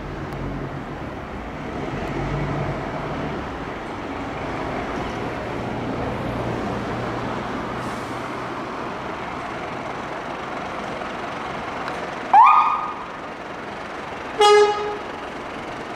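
Scania fire engine's diesel engine running as it pulls out, then a brief rising siren whoop about twelve seconds in and a short horn blast about two seconds later.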